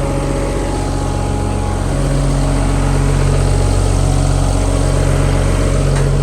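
Volvo PF6170 asphalt paver's Cummins diesel engine idling steadily, slightly louder from about two seconds in.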